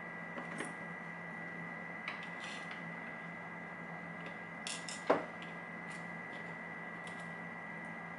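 Light metallic clinks and taps of a lock and small tools being handled on a bench, with one sharper knock about five seconds in.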